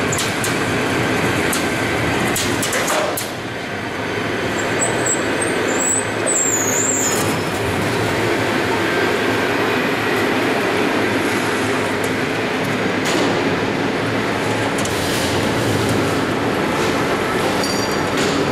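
Automatic sheet-metal air duct production line running: conveyor belts, rollers and feed machinery make a steady mechanical rumble with scattered clicks. A brief high squeal comes about six seconds in.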